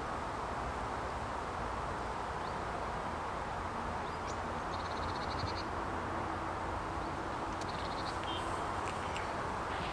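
Riverbank background: a steady low rush of outdoor noise. About five seconds in, a small bird gives a short, rapid, high chattering call, with a few brief high chirps near eight seconds.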